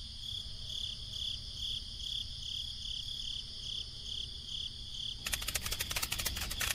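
Crickets chirping in a steady high-pitched pulse, a few chirps a second. A fast run of clicking joins in about five seconds in.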